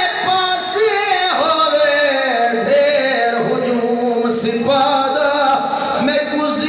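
A man singing a Punjabi lament for Karbala in long held notes that slide up and down in pitch: a zakir chanting the masaib of a majlis into a microphone.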